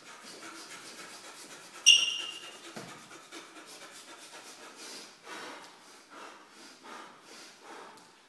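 Shoes shuffling and scuffing on a hard gym floor. About two seconds in comes one sharp, ringing high squeak, the loudest sound.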